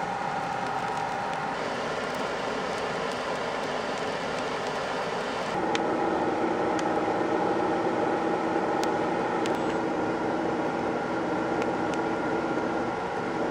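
Blower running steadily, forcing air into a burning hemlock stump, with a few sharp crackles from the glowing embers. Its hum steps to a new pitch twice and gets a little louder about halfway through.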